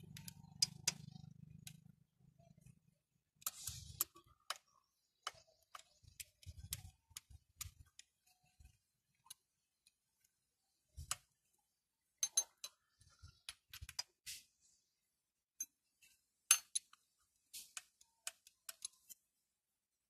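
Faint, scattered metallic clicks and taps, with a quiet gap near the middle: hand tools and rocker arms on the valve train of a Honda TMX 155 cylinder head during valve clearance adjustment.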